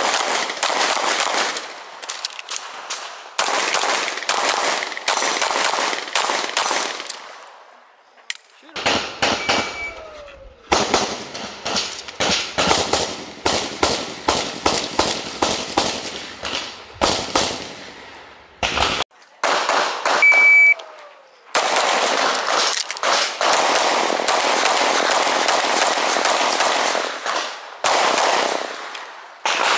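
Rapid strings of semi-automatic pistol shots during a practical-shooting stage, several shots a second, broken by brief pauses. About a third and two-thirds of the way in, a short high electronic beep sounds, the shot timer's start signal, and shooting follows.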